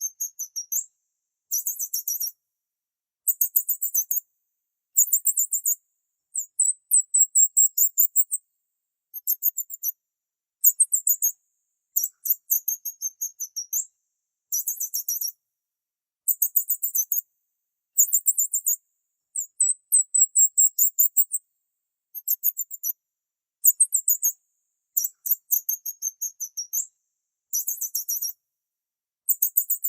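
Small bird chirping in short bursts of rapid, very high notes, about one burst every one to two seconds, with silence between.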